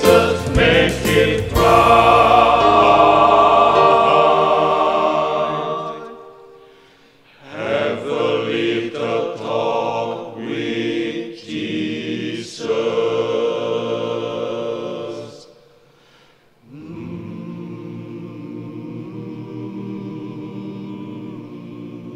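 Gospel choir with accompaniment holding the song's final chord, with a few sharp strikes at the start, then fading out. After a short pause comes another passage of choral music about eight seconds long, then a softer sustained chord.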